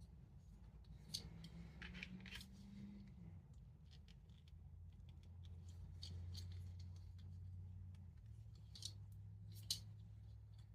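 Faint, scattered clicks and taps of a plastic Transformers action figure and its packaging being handled, with a sharper click about a second in and another near the end, over a low steady hum.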